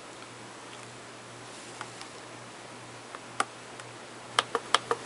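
Sharp clicks of someone working a computer by keyboard or mouse: a few scattered clicks, then a quick run of about seven near the end, over a low steady hum.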